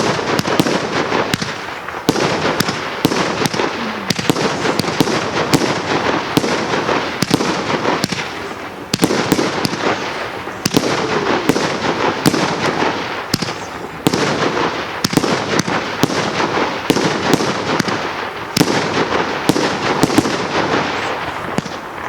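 Consumer firework cake firing a rapid, continuous barrage: many sharp bangs and pops packed closely together, easing briefly about eight seconds in and then picking up again.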